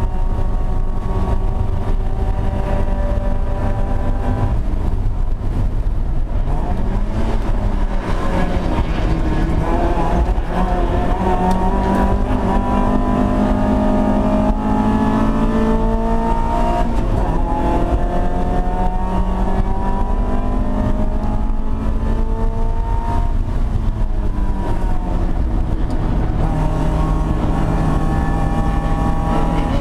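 Mazda Miata race car's four-cylinder engine heard from inside the cockpit under race load. Its pitch falls and climbs several times as the driver brakes, shifts and accelerates through the corners, over a steady low rumble from the car.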